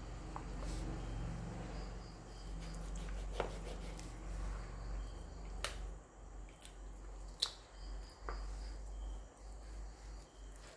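A kitchen knife cutting through a whole raw chicken on a wooden board: soft wet handling of the meat, with a few sharp clicks of the blade against bone or board scattered through. A low steady hum and faint high chirping, like crickets, sit underneath.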